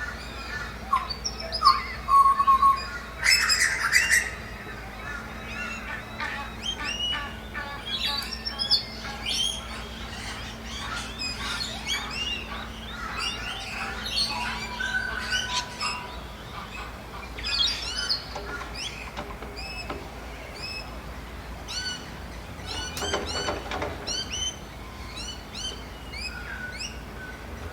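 Several songbirds chirping and singing over one another in a forest dawn-chorus mix, with a louder flurry of calls about three seconds in.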